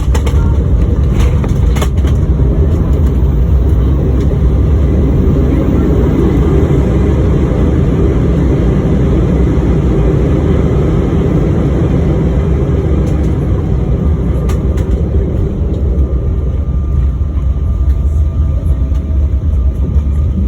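Jet airliner cabin noise on the ground after landing: a loud, steady low rumble from the engines and the wheels rolling, with a few light rattles. About fifteen seconds in the rumble eases a little and a faint steady engine whine comes through as the aircraft slows.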